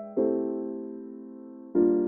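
Background piano music: soft chords struck and left to fade, one at the start and another near the end.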